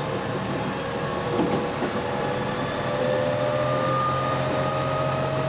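JR West 207 series motor car running on its Toshiba GTO-thyristor VVVF inverter. The inverter whine rises slowly in pitch as the train gathers speed, over the steady rumble of running. The recordist finds this car's inverter modulation sound abnormally odd compared with other cars.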